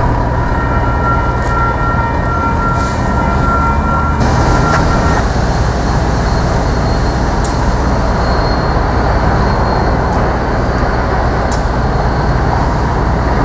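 Slow freight train passing, with the low rumble of diesel locomotive engines and the rolling of covered hopper cars. A steady high tone runs for about the first five seconds, and a few sharp clicks come at intervals.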